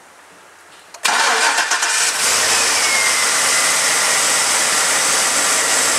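A 2006 Chevy truck's 6.0-litre Vortec V8 starts about a second in and settles into a loud, noisy run with a steady high whine. This startup noise is why the 229,000-mile engine is judged a rebuilder; the seller guesses it is valve-train noise.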